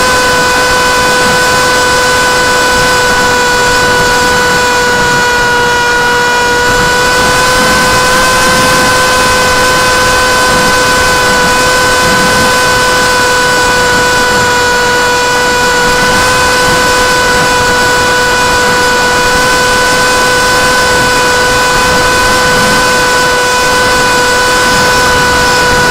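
Brushless outrunner motor (Sunnysky 2204 2300kv) spinning a 6045 propeller at a nearly constant throttle, recorded by a camera strapped to the wing. It makes a loud, steady-pitched whine with a steady hiss underneath.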